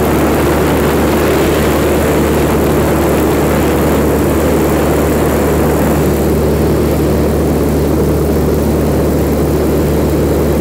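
Light propeller airplane's engine and propeller droning steadily at cruise, heard from inside the cabin with rushing air noise over it.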